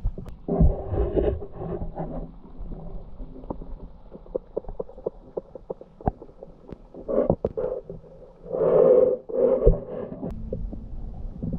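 Muffled underwater noise picked up by a camera submerged in a lake: a low rumble with scattered clicks and knocks, and two louder muffled swells, about half a second in and again near the end.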